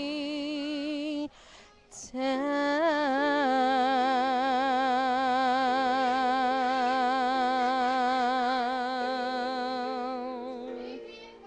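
A woman singing the last word of the song, holding one long final note with wide vibrato for about nine seconds after a short breath. The note fades away near the end, over a steady sustained backing chord.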